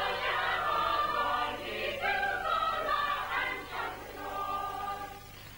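Background music: a choir singing held chords, fading away near the end.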